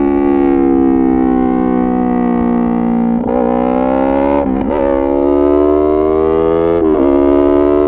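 A Yamaha MT-03's 321 cc parallel-twin engine through an SC-Project full titanium exhaust, heard while riding. The engine note sinks slowly for the first few seconds, then the bike pulls hard, the revs climbing, dropping sharply at each of two quick upshifts and climbing again.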